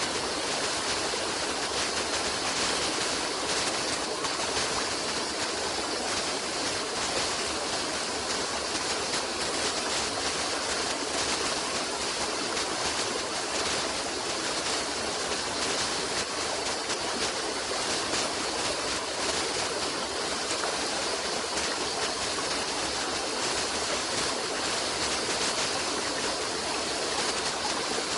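A stream of water flowing, an even, steady rush without breaks.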